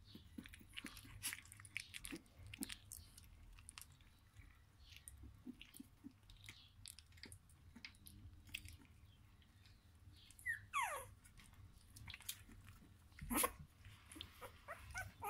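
Young Australian kelpie puppy mouthing and sucking on a person's fingers: faint wet smacking and clicking sounds. About ten seconds in, a puppy gives one short whine that falls in pitch, and a louder click follows a few seconds later.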